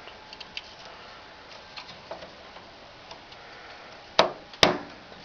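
Faint ticks of handling, then two sharp clicks about half a second apart near the end: the retention clips of a desktop RAM slot snapping shut as a memory stick is pushed in and seats.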